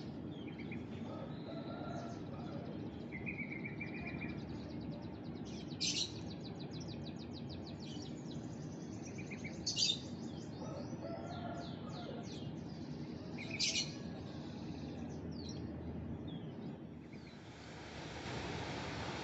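Small birds chirping and trilling in quick high notes, with three louder calls about six, ten and fourteen seconds in, over a steady low background rumble. A steady hiss starts near the end.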